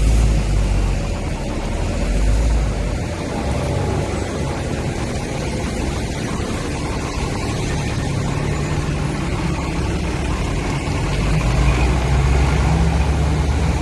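Double-decker bus engine running in a steady low rumble at the stop. The rumble swells near the end as the bus pulls away, over general street traffic.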